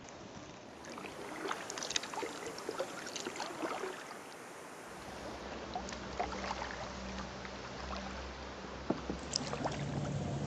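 Double-bladed kayak paddle dipping and pulling through calm river water: irregular splashes, with drops running off the lifted blade. A low steady hum comes in about halfway through.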